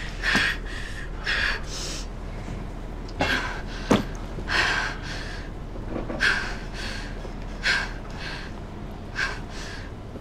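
A young woman breathing hard in quick, ragged gasps, the in- and out-breaths coming about once a second, in distress. A sharp click stands out about four seconds in, over a steady low hum.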